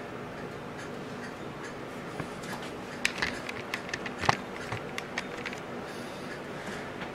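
Handling noise: a cluster of light clicks and knocks about three seconds in, the loudest a little after four seconds, over a steady low hum.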